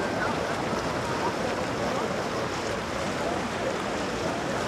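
Steady outdoor wash of water and wind noise, with faint voices in the distance.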